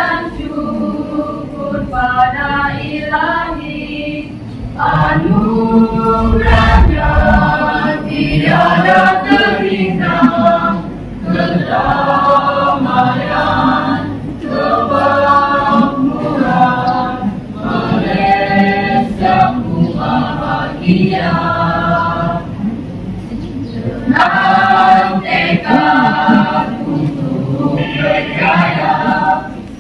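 Mixed choir of teenage boys and girls singing a cappella, in phrases a few seconds long with short breaks between them.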